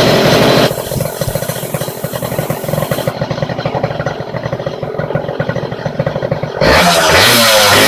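Yamaha YZ80 two-stroke single-cylinder engine running through a homemade silencer. It is held at high revs, drops back to idle about a second in, and is revved up again near the end.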